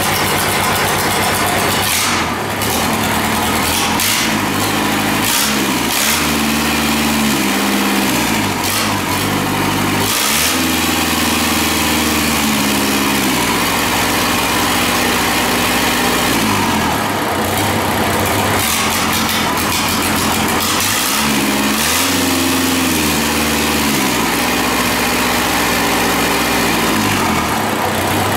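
Kubota diesel engine running on a test stand, revved up and let back down by hand at the throttle several times between stretches of idle.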